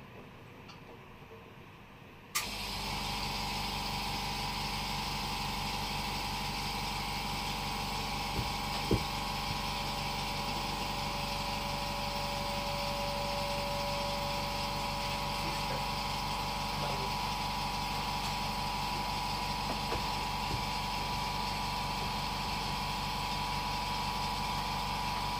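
A small electric blower or motor switches on with a click about two seconds in, then runs steadily with a hiss, a low hum and a steady whine.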